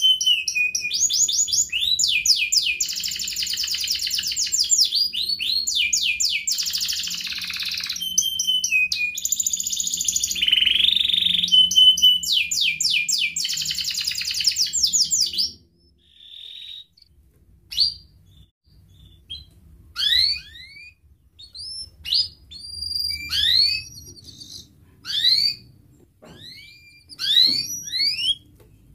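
Domestic canary singing a long unbroken song of fast rolling trills and whistled notes. About halfway through it stops abruptly and gives only short separate whistled notes, roughly one a second, each slurring up or down.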